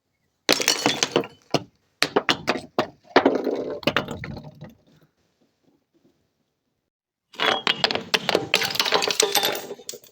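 Glass bottles being crushed: dense runs of sharp cracking, crunching and clinking. They come in three quick bursts over the first few seconds, then after about two and a half seconds of quiet a longer burst near the end.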